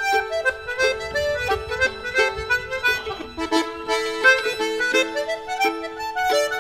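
Instrumental background music: a reedy instrument playing a melody of short notes over sustained chord tones.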